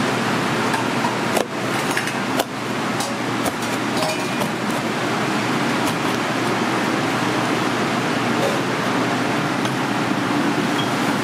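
Steady noise of a kitchen ventilation fan, with a few sharp knocks of a knife against a wooden cutting board in the first few seconds as fish is cut.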